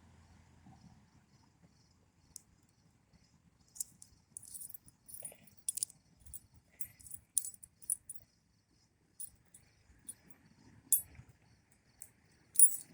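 Small padlock being worked with its key: scattered light metallic clicks and key tinkles as the key goes in and turns and the shackle releases. No crisp snap as the shackle opens, because it is being held.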